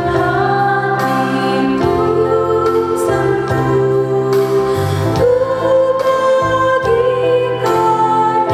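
A hymn sung in Indonesian to instrumental accompaniment.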